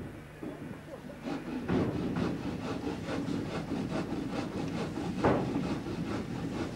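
Cross-country skis and poles scraping and crunching in snow as a skier strides closer, a quick rhythm of about three or four strokes a second starting about a second in, with one harder crunch near the end.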